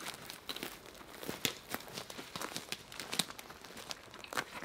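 Footsteps crunching over a dry pine-forest floor of needles and twigs, with twigs crackling and snapping underfoot in irregular small clicks.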